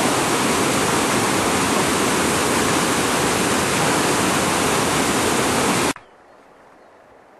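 Waterfall rushing loudly and steadily close by. The sound cuts off suddenly about six seconds in, leaving only a faint background.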